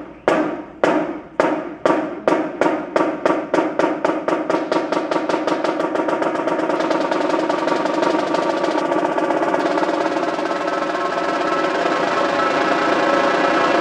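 Marching snare drum played with sticks: single strokes that speed up steadily until they merge into a sustained roll about five seconds in. The roll holds and grows slightly louder near the end.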